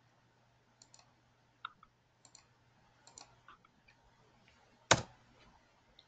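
Faint, scattered clicks from computer controls, about a dozen spread irregularly, with one much louder click about five seconds in, over a faint steady low hum.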